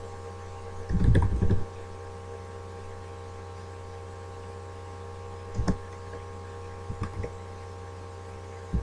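Steady low electrical hum picked up by a laptop's built-in microphone, with a dull bump about a second in and a few scattered clicks later, as from hands tapping and handling the laptop.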